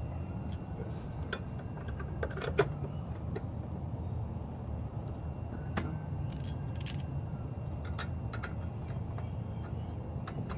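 Light metallic clicks and clinks from metal parts and tools being handled, scattered and irregular, with one sharper click about two and a half seconds in, over a steady low rumble.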